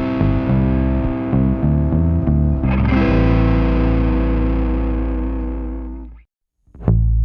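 Background music: distorted electric guitar over a bass line, fading out about six seconds in, then a brief gap and new plucked notes starting near the end.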